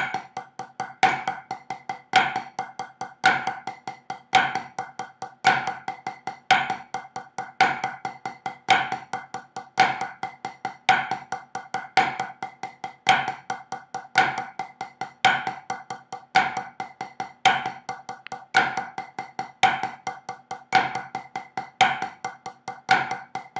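Drumsticks playing a flammed five-stroke paradiddle exercise on a practice pad, five strokes to each beat, against a metronome clicking at 55 beats per minute. A strong click comes about once a second, with quicker, softer strokes between the clicks.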